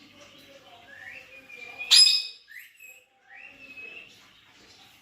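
Pet parrots calling: repeated short whistles that rise and then hold, with one loud, sharp shriek about two seconds in.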